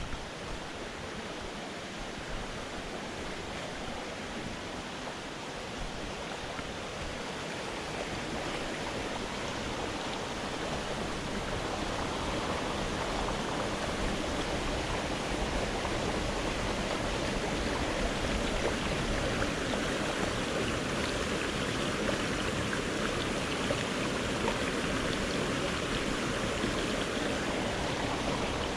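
A small moorland stream rushing over and between mossy granite boulders, a steady watery rush that grows gradually louder as it comes closer.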